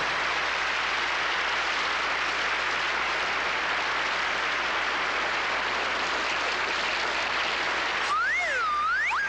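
Studio audience applauding steadily, with a whistle sliding up and down near the end.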